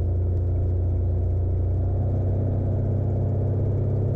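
Jabiru 250 light sport aircraft's six-cylinder engine and propeller running steadily at power as the takeoff roll begins, a loud, even drone with a strong low hum.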